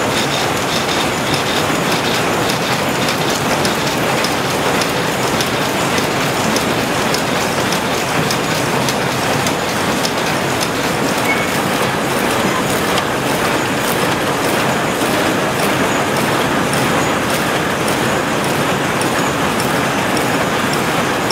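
Power looms weaving blanket fabric, running with a loud, steady mechanical clatter and a regular beat of clacks a few times a second.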